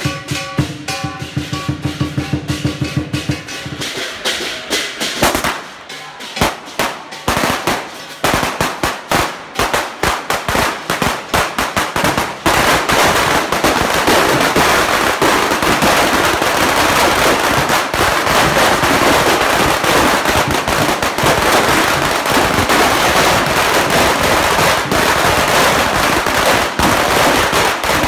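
Rhythmic music for the first few seconds, then a string of firecrackers going off. It starts with scattered sharp bangs, and from about halfway through it becomes a dense, continuous rapid crackle of bangs that runs on to the end.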